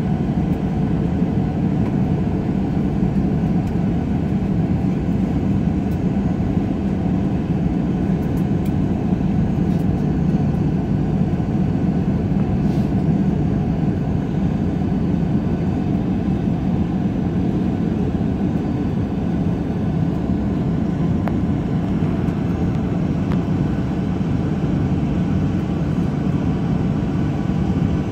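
Steady cabin noise of a Boeing 737-800 on the ground, its CFM56-7B turbofan engines idling as it taxis, heard from inside the passenger cabin. An even low hum with no change in level.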